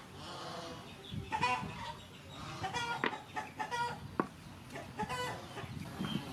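Chickens clucking in a series of short calls, with a few sharp clicks of a metal spoon against a wooden mortar.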